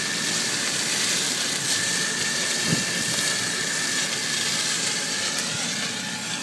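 Tractor driving a Tehnos flail mulcher through corn stalks as it moves away: a steady engine and rotor noise with a thin, steady high whine.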